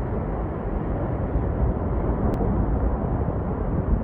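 Loud, steady rushing of wind buffeting the microphone, heaviest in the low end.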